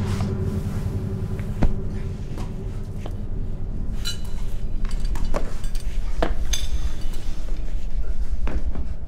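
Film sound effects: a low steady rumble with scattered metallic clinks and knocks, some of them ringing briefly, growing louder and more frequent from about three seconds in.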